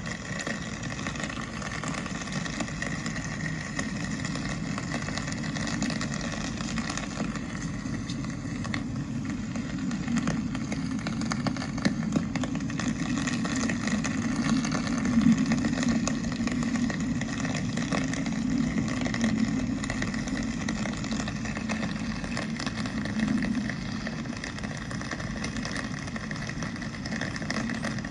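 Rainy city street ambience: a steady rush of traffic and wet tyres, with a faint patter of rain throughout, slightly louder in the middle.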